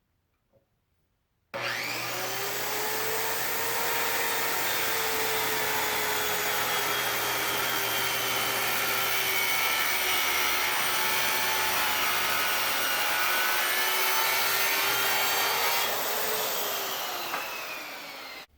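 Electric circular saw cutting through the end of a thick black walnut slab. The motor comes up to speed about a second and a half in, runs steadily through the cut with its pitch sagging a little under load, then winds down and stops near the end.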